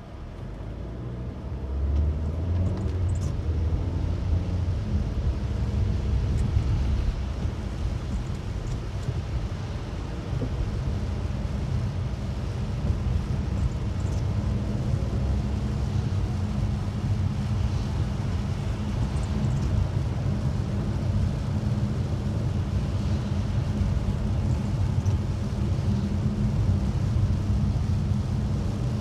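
Car rumble and tyre noise from inside the cabin while driving on a rain-soaked road, with a steady hiss of rain and spray. It grows louder over the first couple of seconds as the car pulls away from a stop, then stays steady.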